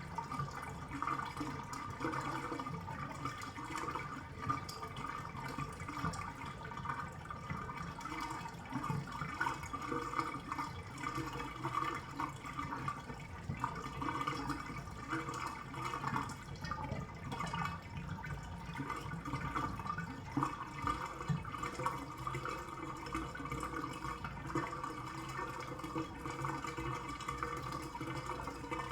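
Bathtub draining: water swirling and gurgling down the plughole in a steady, bubbling flow with frequent small glugs.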